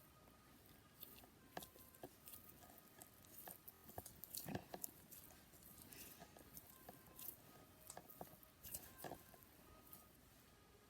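Faint squishing and crackling of glittery slime with sequins in it, kneaded and stretched by hand, with irregular small clicks and squelches.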